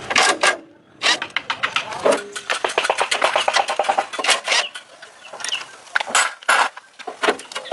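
A rapid, irregular run of sharp clicks and knocks, with a brief pause about a second in.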